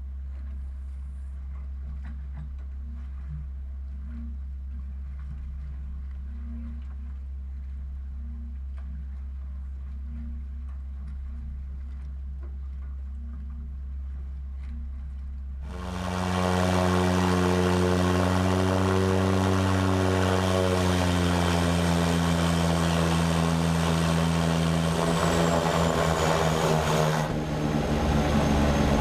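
A steady low hum, then about sixteen seconds in the turboprop engines and propellers of a de Havilland Canada DHC-6 Twin Otter floatplane start up loud, with several steady tones that rise a little and then settle. Near the end the sound changes abruptly to the engines as heard inside the cockpit.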